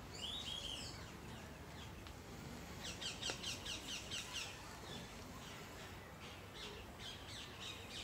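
A bird calling: a brief high call just after the start, then two runs of quick, high, repeated notes at about six a second, the first about three seconds in and the second near the end.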